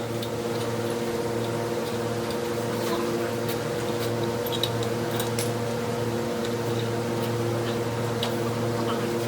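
A steady mechanical hum with scattered light clicks and clinks.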